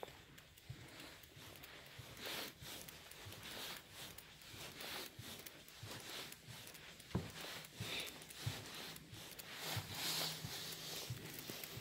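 Soft footsteps of a person walking on carpet tiles, faint low thuds about every half second, with rustling hiss between them and one sharper click about seven seconds in.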